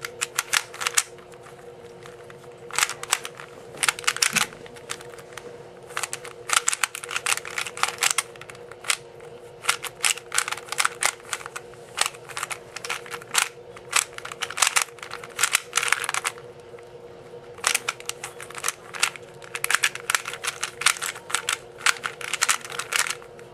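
Lego-covered Rubik's brand 3x3 cube being turned fast during a solve: quick runs of plastic clicks and clacks, broken by a few short pauses, over a steady low hum.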